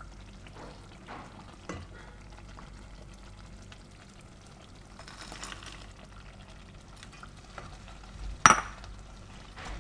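Thick tomato meat sauce simmering and bubbling in a stainless-steel pot while a wooden spoon stirs it, with small scrapes and clicks. About five seconds in there is a brief rush of noise as diced bell peppers are tipped in from a plate, and a single sharp knock comes about eight and a half seconds in.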